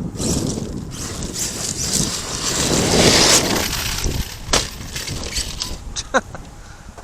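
Arrma Kraton 8S electric RC monster truck driving on loose dirt and gravel: a gritty rush of tyres churning, loudest about three seconds in, with sharp knocks and clicks and a brief falling whine near the end.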